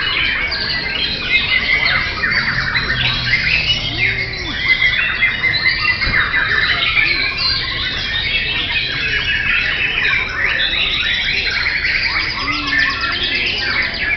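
Many caged white-rumped shamas (murai batu) singing at once: a dense, unbroken chorus of overlapping fast whistles, trills and harsh chatter.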